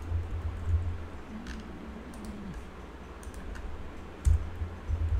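Computer keyboard and mouse clicks: scattered separate key taps and clicks with dull low thumps under them, the loudest thump about four seconds in.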